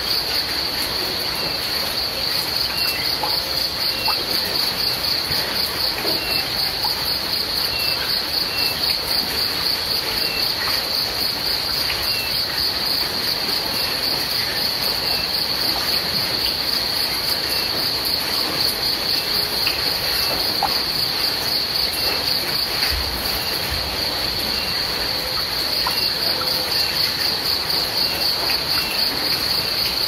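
A chorus of crickets trilling steadily in a fast-pulsing high note over an even hiss. A fainter short chirp repeats every second or so.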